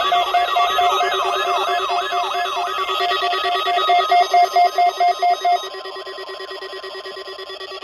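Several electronic weather-radio alert tones sounding at once: a siren-like chirp sweeping up about three times a second, a rapid pulsing beep, and steady tones beneath. The chirp fades out about halfway through and the beeping stops a little later, leaving the steady tones.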